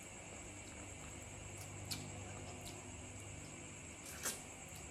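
Close-up eating sounds of fried tilapia being bitten and chewed by hand: a few short, sharp wet clicks and smacks, the loudest a little after four seconds in, over a faint steady background hum.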